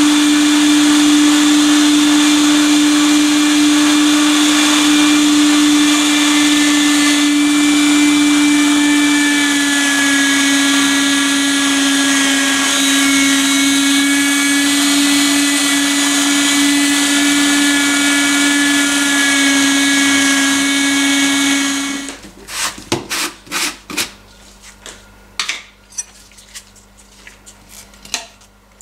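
Electric meat grinder running steadily, grinding meat, its motor giving a loud, even hum. It switches off about 22 seconds in, and after that come scattered light clicks and taps.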